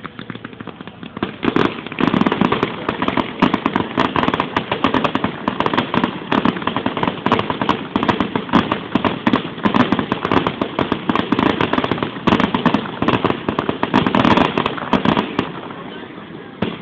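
Fireworks going off in a dense, rapid barrage of bangs and crackling that starts about a second in and dies away near the end.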